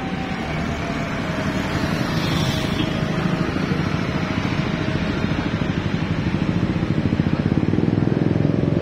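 Motorcycle and car engines running in street traffic, with a fast low engine pulse throughout. It grows louder in the last couple of seconds as more vehicles approach.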